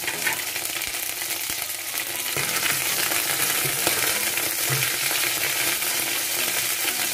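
Hot oil sizzling steadily with small crackles as green chillies, dried red chillies, curry leaves and coriander leaves fry in a tempering (tadka) in a kadai. A wooden spatula stirs through it from about four seconds in.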